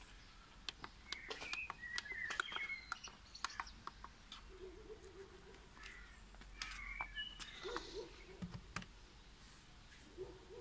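Birds chirping, with scattered clicks and light knocks from the plastic housing of a cordless worksite radio being handled.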